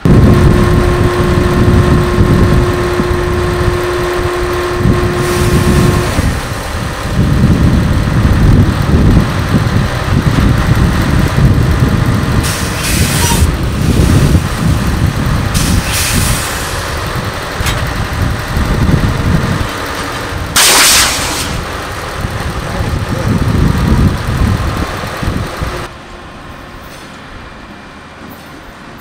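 Diesel genset switcher locomotive running close by as it moves railcars, a loud low rumble with a steady tone for the first few seconds. Several short hisses of air cut through the middle, and the rumble drops away sharply near the end.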